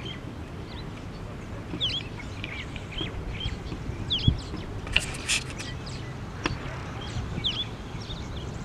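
Wild birds chirping: scattered short, quick chirps over a steady low outdoor background, with a brief hissy burst about five seconds in.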